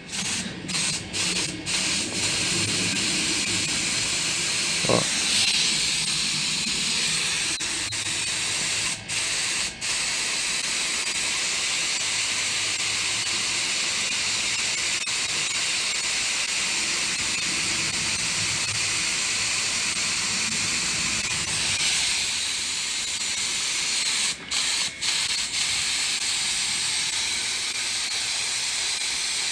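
Compressed air hissing steadily out of an air blow gun held open on a homemade tank compressor, draining the tank. The hiss cuts out for an instant a few times at the start, twice about nine seconds in and twice about twenty-four seconds in, as the trigger is let off and pressed again.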